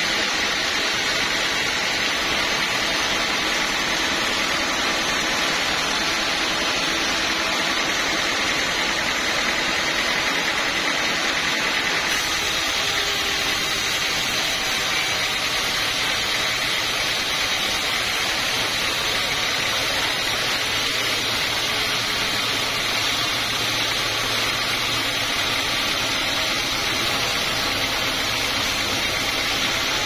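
Band sawmill running steadily, its blade sawing lengthwise through a dry teak log.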